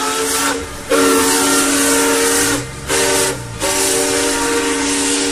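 Steam locomotive chime whistle blowing four blasts, short, long, short, long, each a steady chord of several tones over a hiss of steam.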